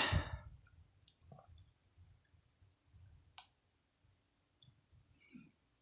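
Faint, scattered light clicks from handling a Lego set, with one sharper click about three and a half seconds in.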